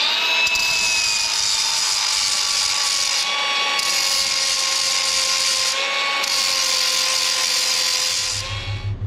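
Milwaukee M18 cordless angle grinder running a steady high whine as its wheel grinds carbide cutter teeth to sharpen them. The grinding hiss dips briefly twice, and the grinder winds down near the end.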